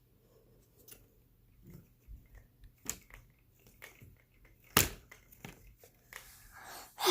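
Quiet room with faint rustling and small handling clicks, and one sharp click a little before five seconds in.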